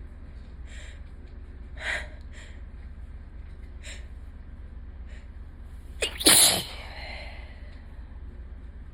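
An allergy sneeze: a few short breaths, then one loud sneeze about six seconds in.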